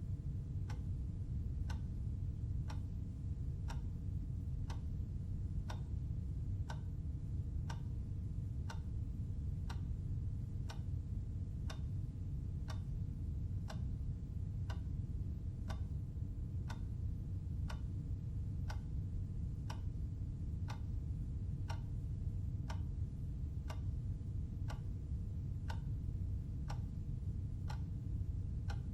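Clock ticking steadily, about one and a half ticks a second, over a steady low hum.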